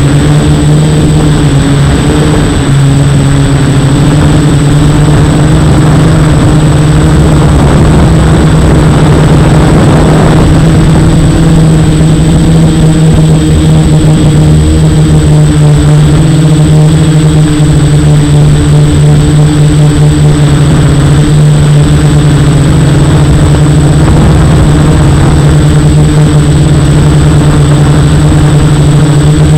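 F450 quadcopter's brushless motors and propellers buzzing continuously in flight, the pitch holding mostly level with small shifts as the throttle changes.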